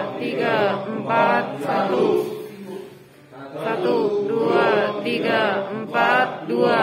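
Several voices chanting a count in unison, in short rhythmic sing-song phrases with a brief break near the middle: trainees counting aloud during CPR compression practice.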